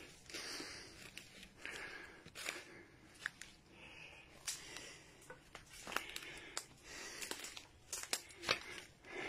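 Footsteps through dry brush, twigs and rubble: scattered crunches, snaps and crackles with soft rustling, fairly faint.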